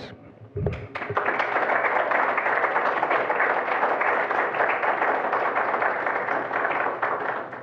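Audience applauding: many hands clapping together, starting about a second in and fading away near the end.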